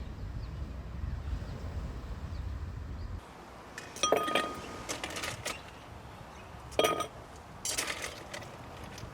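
A steady low rumble that cuts off suddenly about three seconds in. It is followed by a series of sharp, ringing clinks and clatters of hard objects knocked together, in four or five groups.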